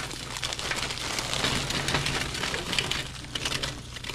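Food sizzling and crackling in hot oil in a pan: a steady hiss full of small irregular pops.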